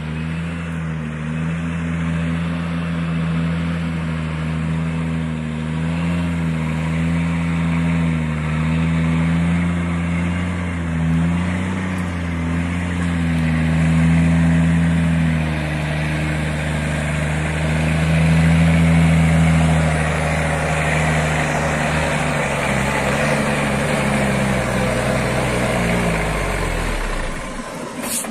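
Loaded cab-over log truck's diesel engine pulling hard under load as it climbs a steep dirt road, a steady low note that wavers slightly. Near the end the engine note drops and fades, then the sound cuts off abruptly.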